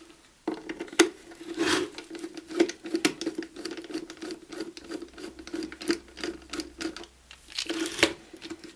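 Plastic parts and small screws of an electric kettle's handle and switch housing being worked apart by hand: irregular clicking, scraping and rattling, with a low steady hum underneath from about half a second in.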